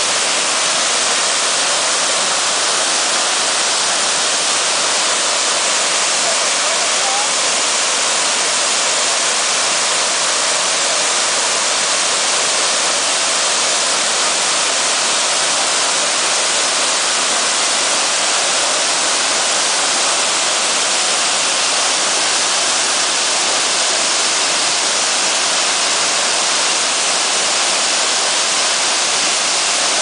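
Waterfall pouring down a rock face into a pool: a loud, steady rush of falling water that holds the same level throughout.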